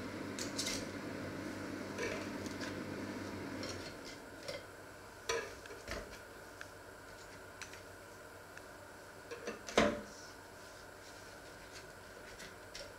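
Metal knife and fork clinking and scraping against a ridged grill tray and a china plate as fried slices are lifted off and stacked. Scattered light knocks, with one sharper clatter near ten seconds in.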